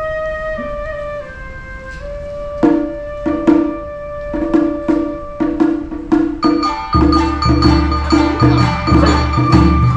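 Awa Odori festival music: a bamboo flute plays a stepping melody, then drums come in with a steady rhythm at about two and a half seconds. The full percussion ensemble swells in heavily, with a high ringing tone, about seven seconds in.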